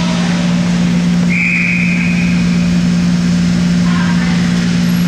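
A referee's whistle blown once, a steady high tone lasting about a second, over a constant low hum in the rink.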